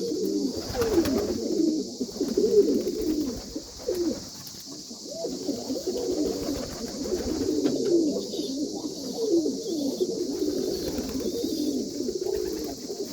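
Several domestic pigeons cooing continuously, their low rolling coos overlapping one another.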